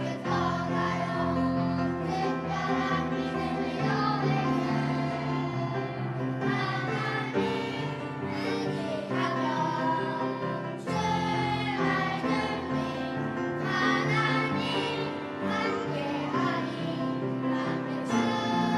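Children's choir singing a praise song in unison over an instrumental accompaniment.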